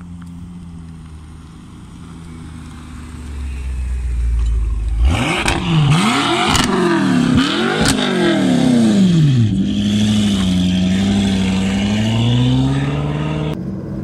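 BMW M5 F10's twin-turbo V8 running low, then revved hard about five seconds in with several quick rises and falls in pitch through the quad exhausts, before settling to a steady raised note that climbs again near the end.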